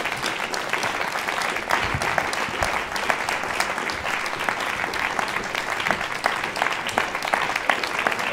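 Audience applauding steadily: many hands clapping at once, a dense patter of claps.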